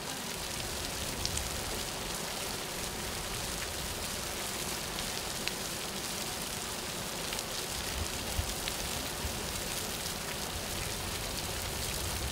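Fly Geyser's hot-water jets spraying and splashing onto the mineral mound: a steady hiss of falling water with faint scattered drips.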